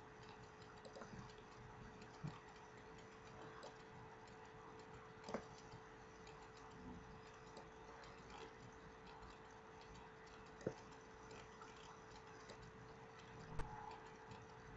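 Near silence with a faint steady hum, broken by four single sharp computer mouse clicks several seconds apart, the loudest near the end.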